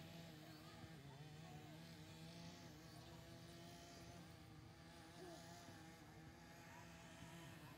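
Faint, steady droning hum holding one even pitch throughout.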